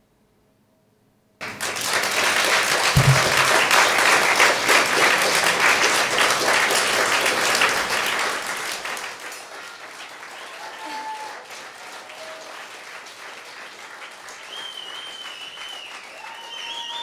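Audience applause breaking out suddenly after a moment of silence at the end of a song, loud for several seconds, then thinning to quieter clapping with some voices.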